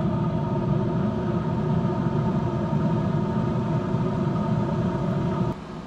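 Wood pellet smoker grill's fan running steadily in its shutdown cool-down cycle, a constant hum over a low rumble that cuts off abruptly near the end.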